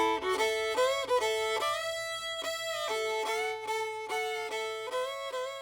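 Background music: a fiddle tune playing held, sliding notes, slowly growing quieter.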